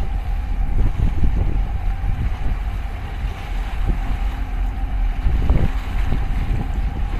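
Wind buffeting the microphone in uneven gusts, over a faint steady hum from a large container ship passing close by.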